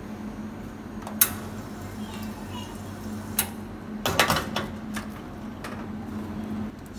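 Metal clinks and clatter of an espresso machine's stainless steel portafilter being handled and locked into the group head, with a short burst of rattling about four seconds in. A steady low hum runs underneath.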